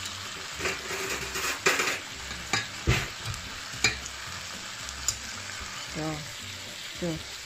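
Beef steaks and onion sizzling steadily as they fry in a pan, with a few sharp clicks of a spatula against the pan.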